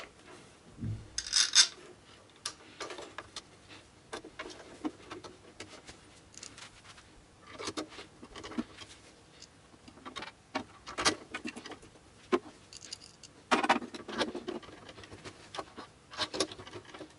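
Hands fitting a fan and its screws inside a PC case: scattered clicks, rubs and small rattles of plastic and metal parts, with a short low knock about a second in and a stronger rustle near the end.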